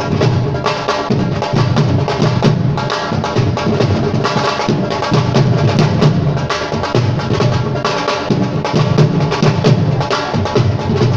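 Live drum music: several drums played together in a fast, dense, steady rhythm with a strong low beat.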